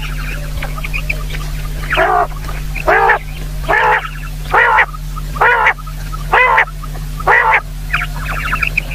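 Common quail calling: seven short, evenly spaced calls, a little under one a second, each note rising and falling in pitch.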